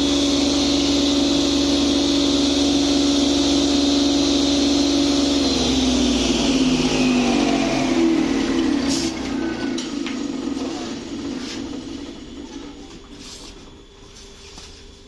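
The 2 hp electric motor of a lidi (palm-leaf-rib) cutting machine running with a steady hum, then switched off about five seconds in and spinning down, its pitch falling as it fades away. A few light clicks near the end.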